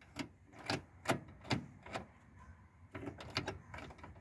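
Mechanical preset push-buttons of a 1970 Buick Sonomatic car radio clicking as they are pressed one after another, about two clicks a second, then a quicker cluster of clicks about three seconds in. The radio plays nothing; it does not work.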